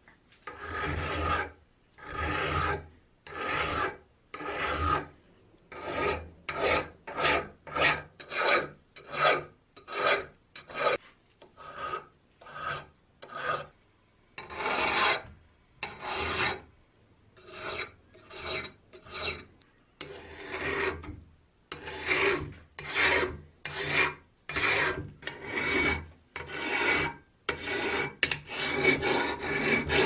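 Flat hand file rasping back and forth over the cast metal body of a vintage Peugeot coffee grinder, taking off casting marks. The strokes come in runs, about one a second at times and about two a second at others, with short pauses between runs.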